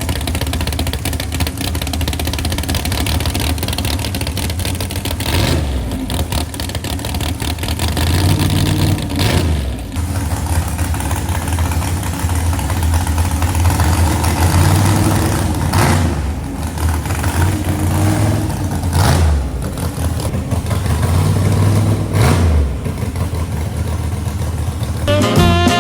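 Freshly rebuilt small-block Chevy V8 running after its first fire-up, blipped up on the throttle about five times between steady running.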